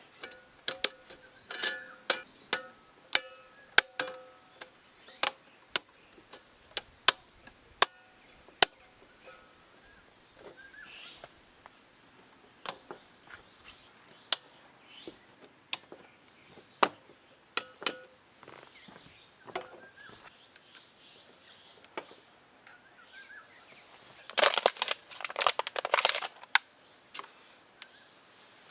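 Irregular series of sharp knocks and clicks, the first several with a brief metallic ring, then a dense burst of rustling near the end.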